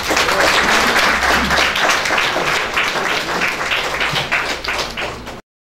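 Audience applauding: a dense patter of many hands clapping that cuts off abruptly near the end.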